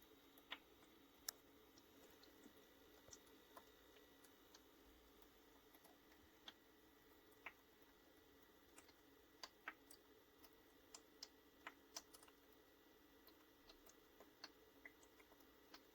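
Near silence: faint room tone with scattered soft, irregular clicks.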